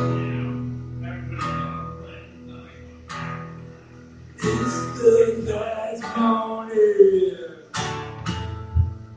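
Acoustic guitar strummed, each chord left to ring out and fade, with a man's singing voice joining over the strums from about halfway.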